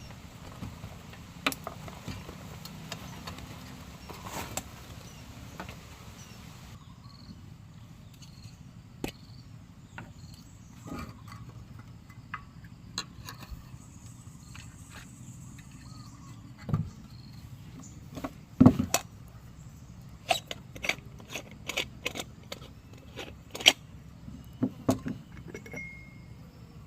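Irregular sharp clicks and taps over a low steady outdoor background, coming more often and louder in the second half.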